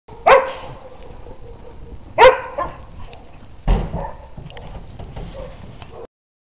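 Dogs barking: two sharp, loud barks about two seconds apart, then a third, deeper bark about a second and a half later, with quieter scuffling between.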